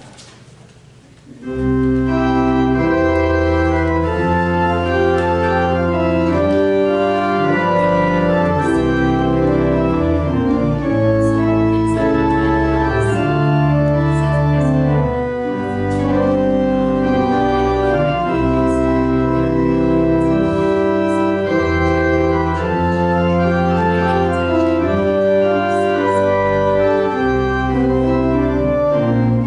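Church organ starting to play about a second and a half in, holding full sustained chords over low bass notes that change step by step.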